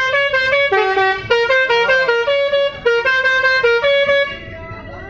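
A bus's multi-tone 'basuri' telolet horn playing a quick melody of short stepped notes, with a few sliding notes in the middle, heard from inside the bus; the tune stops about four seconds in.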